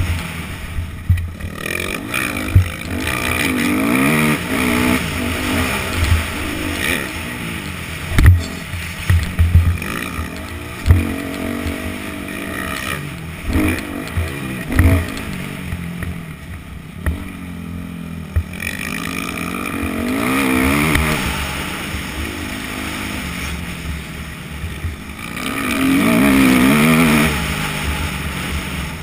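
Yamaha YZ250F four-stroke single-cylinder dirt bike engine, heard from the rider's helmet, revving up and dropping back again and again as it is ridden round a motocross track. Several sudden low thumps sound through it, and the engine is loudest near the end.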